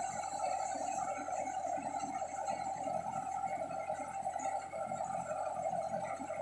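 Tractor-driven paddy thresher running steadily: a continuous rough whirr from the spinning threshing drum.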